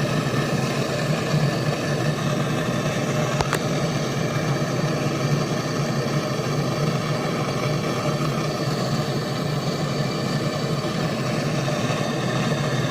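Steady mechanical running noise: a low hum with an even hiss over it, and one sharp click about three and a half seconds in.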